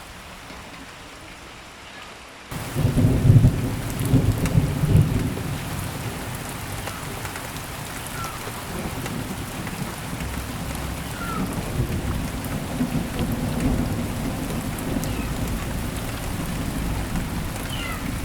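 Steady rain that suddenly gets louder about two and a half seconds in, with a rumble of thunder over the next few seconds, then heavy rain keeps falling.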